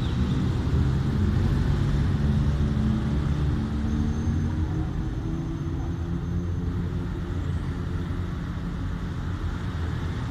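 Road vehicle engines running at low revs as they move off through a town junction, a low rumble with engine notes that slowly fades away.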